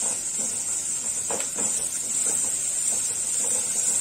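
Sliced onions sizzling in hot oil in a nonstick wok, frying down for beresta, with faint scrapes and taps of a wooden spatula stirring them.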